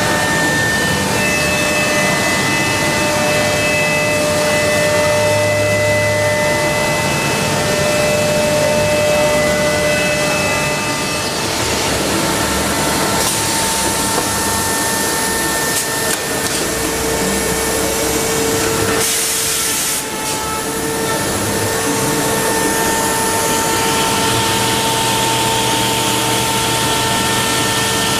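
HOMAG BAZ 32 CNC woodworking machining centre running under load on a wooden panel: steady machining noise with several steady whining tones. The tones shift about twelve seconds in and again near the end, with a brief high hiss about nineteen seconds in.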